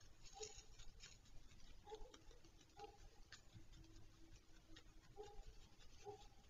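Faint short calls from an unseen animal, repeating about once a second, with scattered faint clicks.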